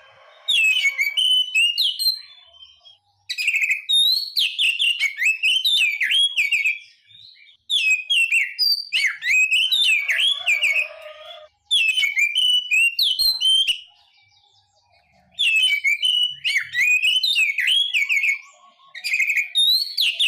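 Oriental magpie-robin (kacer) singing: loud bouts of rapid, varied whistled notes sliding up and down, each bout a few seconds long with short pauses between, and a longer pause about two-thirds of the way through.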